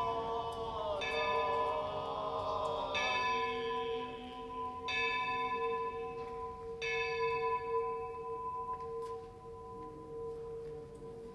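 Church bells struck four times about two seconds apart, each strike ringing on over a steady deep hum that fades away near the end.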